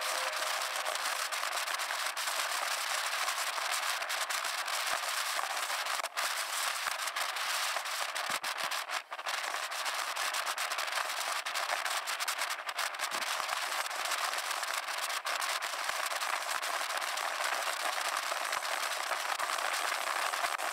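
Wind buffeting the microphone during a motorcycle ride: a thin, steady hiss with dense crackling.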